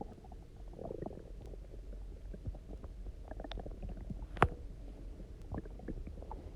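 Human stomach gurgling and rumbling, with many small pops and a gurgle about a second in, then one sharp, much louder pop about four and a half seconds in. These are hunger noises from a stomach left empty for a day and then filled with water.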